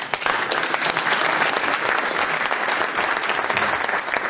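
Audience applause: dense clapping that starts suddenly and holds steady.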